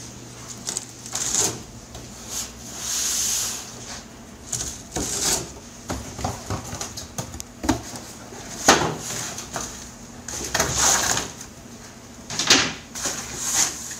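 Pizza-kitchen handling noise: an irregular string of knocks, scrapes and clatters as a pizza is handled on a stainless-steel counter and a cardboard pizza box is pulled down from a stack and opened, with one longer scraping rustle a few seconds in. A steady low hum runs underneath.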